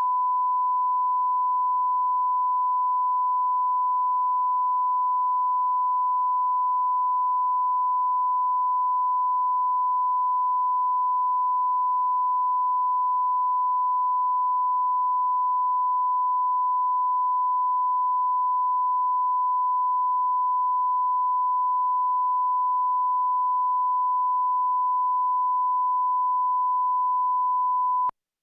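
Steady 1 kHz sine-wave reference tone, the line-up tone that goes with colour bars for setting audio levels, held unchanging and cutting off suddenly near the end.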